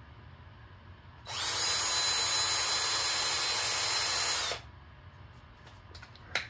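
Cordless drill spinning a bit at steady speed for about three seconds, boring out a hole in a 3D-printed plastic part to widen it. It starts about a second in and cuts off abruptly, with a steady high whine through the run.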